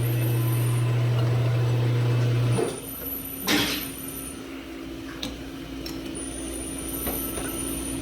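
Metal lathe running with a steady low hum that cuts off about two and a half seconds in as the machine is shut down. A short hiss follows about a second later, and a faint steady whine carries on underneath.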